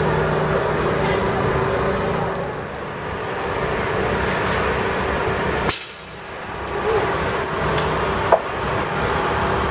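Steady street and construction-site noise with vehicle engines running. There is a sharp click about halfway through and a short knock near the end.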